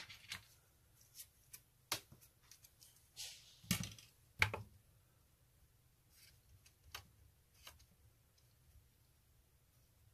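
Scattered light clicks and taps of small tools being handled on a workbench, with two louder knocks close together about four seconds in, over a faint low hum.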